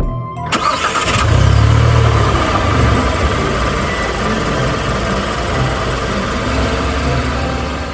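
Car engine starting about half a second in, running loudly with a brief rev, then settling to a steady run.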